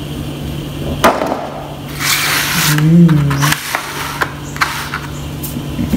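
A clear plastic cake container being handled: sharp plastic clicks and a rustling scrape as the lid and tray are moved, with a short wordless vocal sound about three seconds in.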